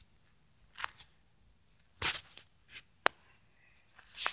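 A few brief rustles and a single sharp click just after the three-second mark, with quiet between them and more rustling near the end: close handling noise, fabric and objects being moved near the microphone.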